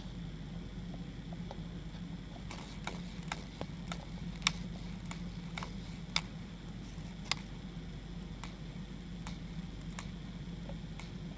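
Devil's flower mantis making a series of short, sharp, irregular clicks, a few of them louder than the rest.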